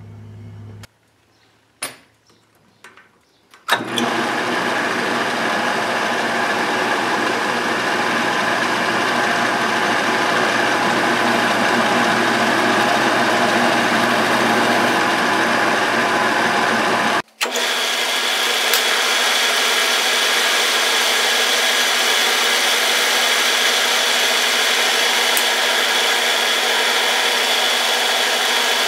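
Manual metal lathe running steadily under cut, first drilling the spinning workpiece with a tailstock drill chuck, then turning it. A few sharp clicks come just before it starts, and it breaks off briefly about two-thirds of the way in, after which the sound is higher-pitched.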